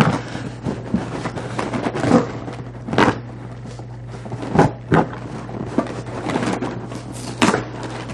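A cardboard shipping box being handled and worked open with a key: scattered knocks and thuds with scraping and rustling between them, the sharpest knocks about three, four and a half, five and seven and a half seconds in.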